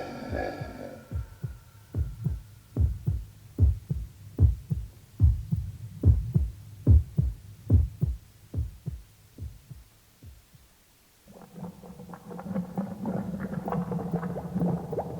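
Heartbeat sound effect: low thumps in lub-dub pairs, about one beat a second, fading out around ten seconds in. After a short silence a different low, steady hum with a crackling texture begins.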